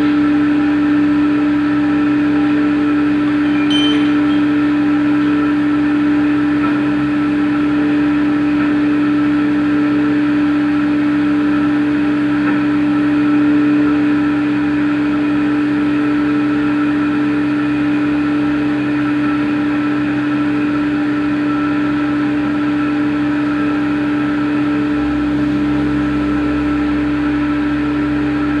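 CNC machine running with a steady, loud hum that holds one pitch throughout, with a deeper low hum settling in near the end.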